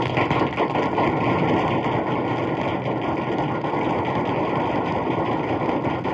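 Dense crowd applause played from a 78 rpm sound-effects record: many hands clapping at once in a steady, even clatter, dull-toned from the old disc.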